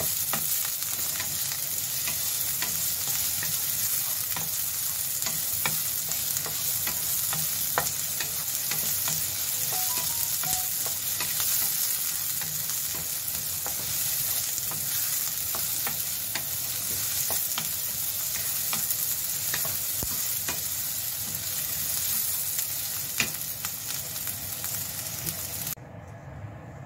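Sliced onions and garlic sizzling in hot oil in a nonstick pan, stirred with a wooden spatula that scrapes and clicks against the pan now and then. About a second before the end the sizzling stops abruptly and it goes much quieter.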